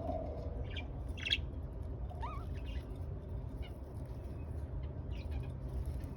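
Budgerigars chirping in short, scattered calls, with one brief rising warble about two seconds in, over a steady low hum.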